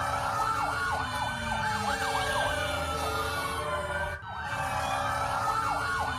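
Several emergency-vehicle sirens sounding together: a slow wail rising and falling, overlaid with quick yelping sweeps and a low rumble beneath. The sound dips briefly about four seconds in, then the same pattern starts over.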